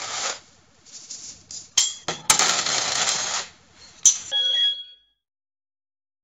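Paper money rustling and coins clinking, with sharp clicks between stretches of rustle, ending in a short ringing tone about four and a half seconds in. Silent from about five seconds.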